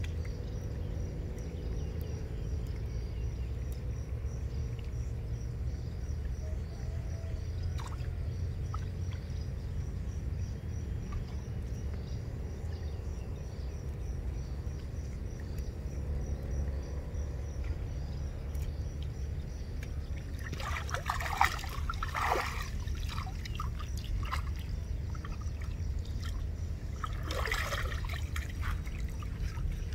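Water splashing as hands work a gill net in shallow muddy floodwater. The splashing comes in two bursts, one a little past two-thirds of the way in and a shorter one near the end, over a steady low rumble.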